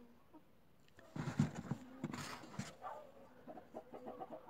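Domestic chickens clucking faintly, with a couple of louder calls in the middle and a quick run of short clucks near the end.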